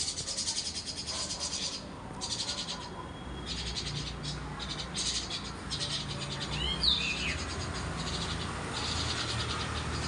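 Insects trilling in rapid pulses, high-pitched, starting and stopping in stretches of a second or so. A few quick falling bird chirps come about seven seconds in. The peacock does not call.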